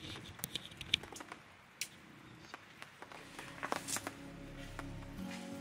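Scattered light clicks and soft rustles of a dome tent's fabric and poles being handled. Music comes in near the end.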